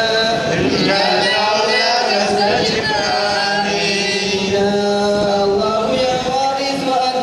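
A man chanting an Islamic religious text in long, held, wavering notes.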